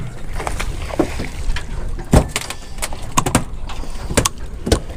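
Steady low rumble of wind and water on an offshore fishing boat, with scattered sharp knocks and clicks, a cluster of them about three seconds in.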